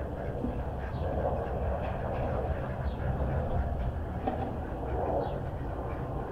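A steady low rumble with faint, short high chirps every second or two.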